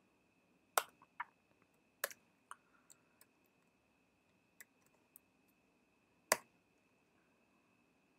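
Computer keyboard keystrokes typing code: about nine separate clicks at an uneven pace, with pauses of a second or more between some, the loudest about six seconds in.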